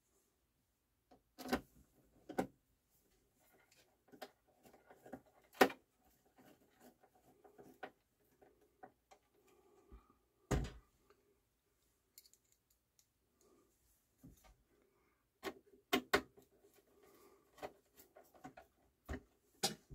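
Scattered clicks, taps and a few sharp knocks of a screwdriver and hands working on a CD changer's metal bottom plate, with faint scraping between them and a duller thump about ten seconds in.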